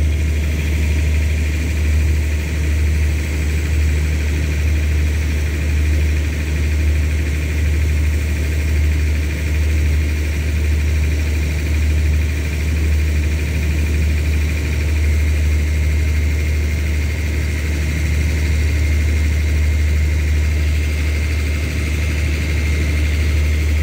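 Diesel train idling at a standstill: a steady low engine hum with a thin, high, steady whine above it.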